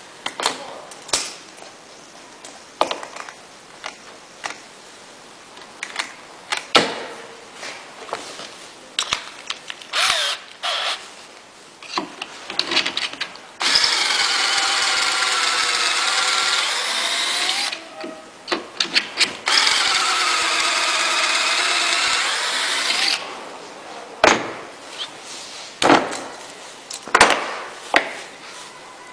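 A power drill with a pocket-hole bit bores through the jig into a 20 mm board in two runs of about four seconds each, its motor whine wavering in pitch as the bit cuts. Before, between and after the runs come scattered clicks and knocks from handling the jig, the clamp and the wood.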